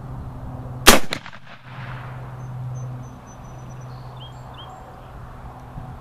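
.54 calibre Lyman muzzleloading rifle firing a single shot about a second in: one sharp crack with a brief ringing tail.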